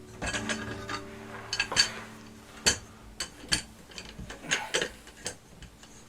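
Irregular sharp metal clicks and clinks, about ten over several seconds, from a tool working the bolts while the Ender 3 printer's frame uprights are fastened.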